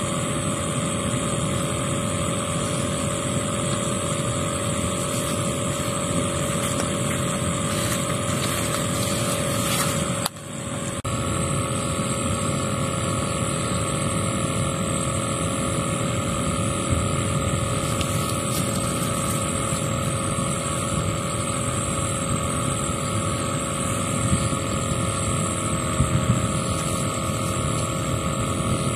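Steady drone of a motor running, with a constant hum. It drops out for a moment about ten seconds in.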